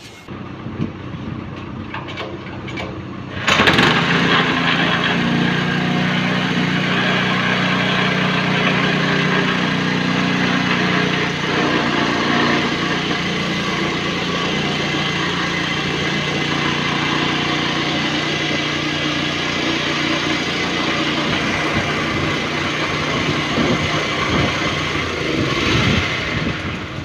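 HTP high-pressure spray pump set starting up suddenly about three and a half seconds in and running steadily, then dropping away near the end.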